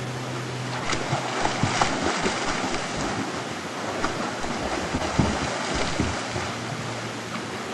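Steady rush of flowing water, with scattered low knocks and crackles on the microphone.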